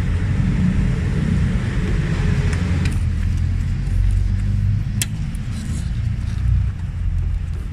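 Steady low rumble of a vehicle engine idling, with a couple of sharp clicks from pliers working a hose clamp about three and five seconds in.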